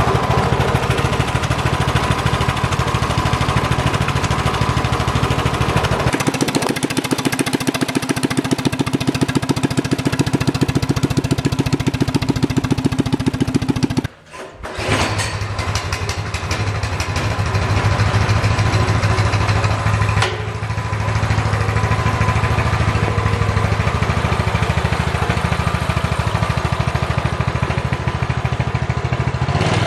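Coleman CT200U-EX minibike's single-cylinder four-stroke engine running with an open straight-pipe header, with an even, rapid exhaust pulse. About 14 s in the sound breaks off for half a second, then the engine runs again with a deeper tone.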